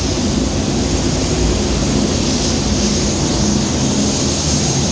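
Automotive paint spray gun hissing steadily as it lays an even final coat of Cromax Pro waterborne basecoat.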